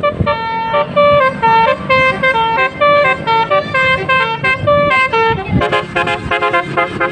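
A bus's musical horn playing a quick melody of short, stepped notes. About five and a half seconds in, the notes turn faster and choppier.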